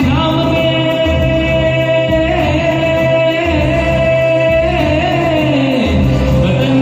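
Music: a singer holding long, gliding notes over a backing track with a pulsing bass.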